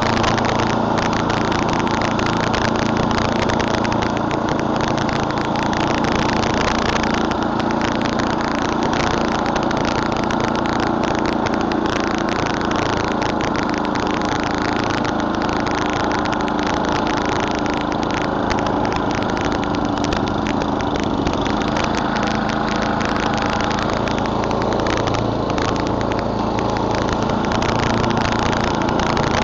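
Murray Select snowblower's 11 hp Tecumseh engine running steadily at a constant speed.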